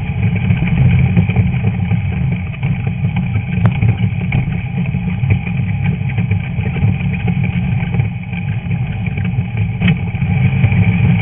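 Stock VW Beetle's air-cooled flat-four engine running hard in off-road racing, with a few light rattles, easing slightly a couple of times and building again near the end.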